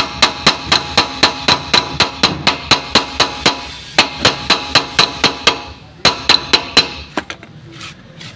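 Hammer striking a metal part in quick, even blows, about four a second, each blow ringing. The blows stop about five and a half seconds in, then come again in a short run and a few scattered strikes.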